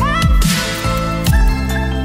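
Electronic background music with a steady beat of deep bass hits that fall in pitch, under held synth tones.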